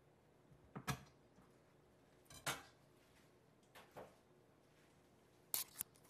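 Kitchen knife knocking and clicking against a plastic cutting board while bones are trimmed from fish fillets. There are four faint, short knocks spread over a few seconds, the last a quick double click.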